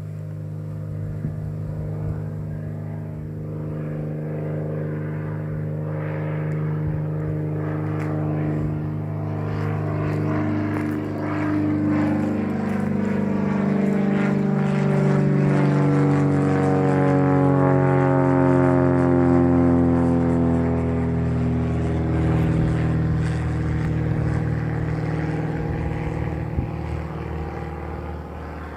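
Propeller airplane's engine droning steadily as it flies past. It grows louder to a peak about two-thirds of the way through, then fades a little.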